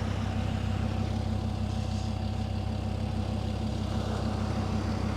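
A four-wheel drive's engine idling steadily, a low even hum.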